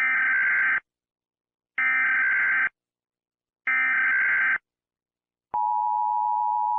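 Emergency Alert System SAME header: three bursts of shrill digital data tones, each just under a second long and a second apart. About five and a half seconds in, the steady two-tone EAS attention signal begins.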